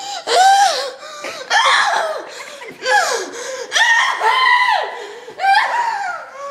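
A child's voice in about five loud, high-pitched shrieking outbursts, each under a second long, gliding up and down in pitch.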